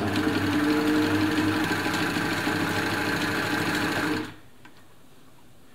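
Elna Lotus SP sewing machine running steadily, sewing a wide zigzag satin stitch, then stopping abruptly about four seconds in.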